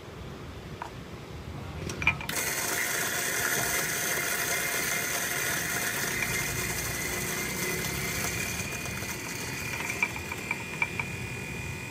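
Electric coffee grinder switched on about two seconds in and running steadily with a whine while it grinds a cupping sample of roasted beans; a few light clicks near the end.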